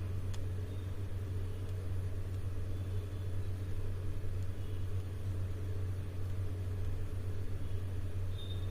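A steady low hum with a faint click about a third of a second in.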